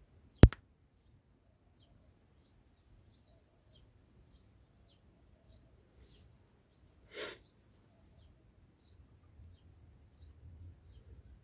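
A bird chirping faintly, short high chirps about one or two a second, over a low background hum. A single sharp click near the start is the loudest sound, and a short burst of noise comes about seven seconds in.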